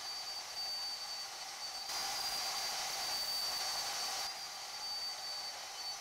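Porta-Band portable band saw running and cutting through aluminum angle: a steady hiss with a thin high whine, somewhat louder for about two seconds in the middle.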